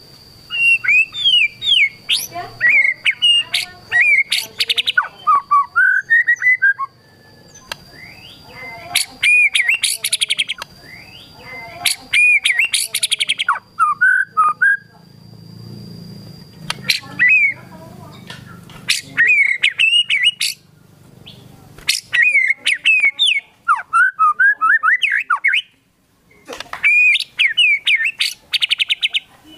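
White-rumped shama singing loudly: rapid, varied phrases of sliding whistles and chirps in bursts of a second or two with short pauses between, a full song packed with mimicked calls of other birds.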